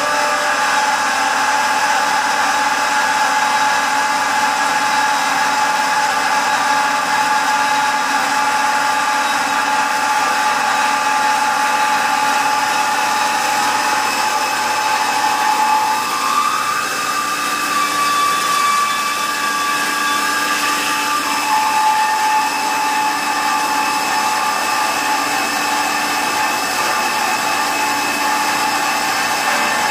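The integrated bandsaw of a Rüsch RDU 320/600 beam line sawing through a steel beam: a steady mechanical whine with several held tones over a noisy hiss. In the middle a higher tone joins in for about five seconds.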